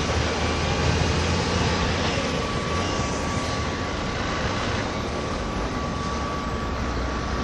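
Steady din of port machinery unloading sand from a bulk carrier, including the cranes, hoppers, trucks and a wheel loader: a constant low rumble and hiss with one steady high whine over it.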